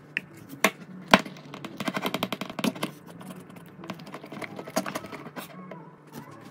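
A spoon stirring flour and water into a sourdough starter in a glass jar, clicking and scraping against the glass, with a fast run of clicks about two seconds in and single sharper knocks between.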